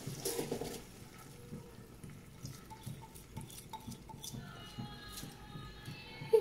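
Soaked rice pouring from a bowl into a hot pan of peas and whole spices, loudest in the first second as the bulk of it slides in, then quieter as the last grains are scraped out by hand, with scattered light clicks of the bowl rim and fingers against the pan.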